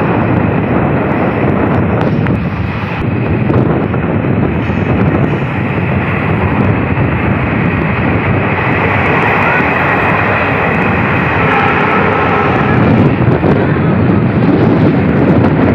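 A passenger train in motion, heard from an open coach window: a loud, steady rushing rumble of the coach running along the track.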